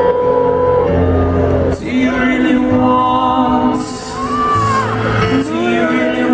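Live acoustic rock performance: long held notes from the band and voice, with the crowd whooping and cheering about four seconds in.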